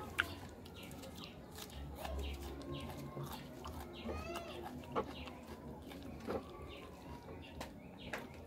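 Wet, sticky clicks and squelches of a bare hand picking through rice and fish in thick sauce, with a few sharper clicks. A short animal call sounds in the background about four seconds in.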